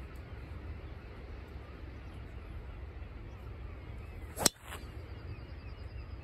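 Driver striking a golf ball off the tee: a single sharp crack about four and a half seconds in, with a faint echo just after.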